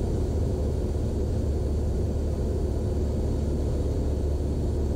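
Steady low drone of a Cessna 172 Skyhawk's engine and propeller in a descent, with no change in pitch or level.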